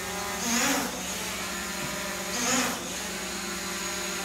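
Small quadcopter drone buzzing steadily as it hovers close by, its propeller whine even and insect-like. Two brief louder rushes of noise break in, about half a second and two and a half seconds in.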